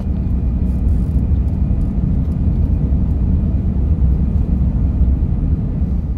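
Cabin noise of an Airbus A350-900 airliner climbing out just after takeoff: a loud, steady deep rumble of its Rolls-Royce Trent XWB engines and rushing air, with a faint steady high whine.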